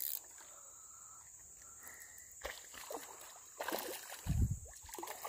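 A hooked smallmouth bass fighting on the line and splashing at the creek surface, the loudest splash about four seconds in, with a few lighter slaps of water before it.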